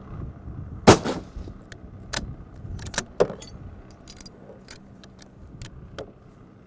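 A single rifle shot about a second in, followed over the next few seconds by a string of sharper metallic clicks and clacks.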